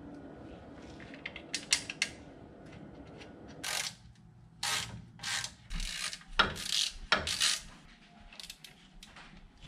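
Hand ratchet clicking: a few light clicks, then from about the middle a run of short ratcheting strokes, about two a second, as it turns the nut on the truck's front spindle at the hub.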